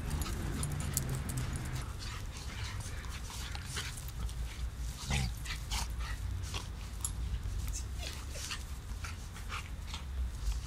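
Shiba inu puppy and a larger dog play-wrestling: a rapid, irregular run of short sharp clicks and snaps from mouthing jaws and scuffling bodies, over a low rumble.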